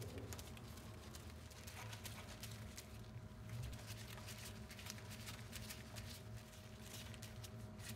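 Faint, irregular clicking of a hand ratchet driving a hex-bit socket as the cap screws of a Warn manual locking hub are tightened down evenly. A faint steady hum sits underneath.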